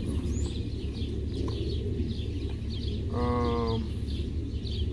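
One short animal call about three seconds in, holding a steady pitch for about half a second, over a steady low rumble and small bird chirps repeating throughout.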